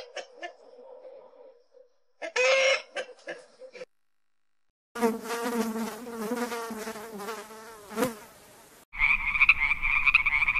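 A rooster gives two short calls in the first few seconds. From about 5 s in, a honeybee buzzes in flight, its pitch wavering. From about 9 s in, a frog croaks in a fast, steady run of pulses.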